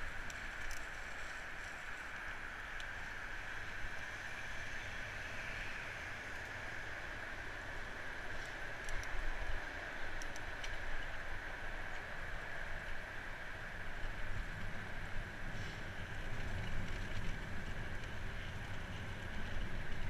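Riding noise from a bicycle on the move: steady rolling tyre noise with a gusty low rumble of wind on the camera's microphone that grows stronger in the second half, and scattered small clicks and rattles.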